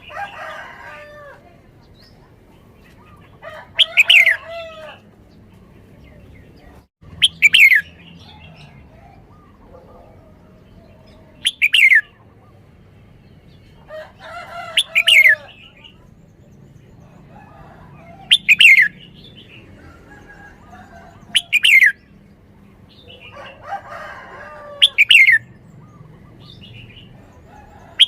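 Red-whiskered bulbul singing: short, loud whistled phrases, each falling in pitch, repeated about every three to four seconds, with softer, lower notes between them.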